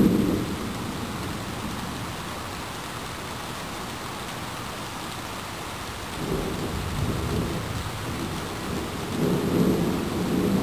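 Thunder rumbling over steady rain: a roll dies away in the first second, then the rumbling returns about six seconds in and swells again near the end.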